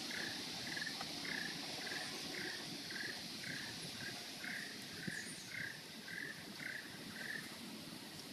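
An animal calling in short chirps, about two a second, over a steady high hiss. The chirps stop near the end.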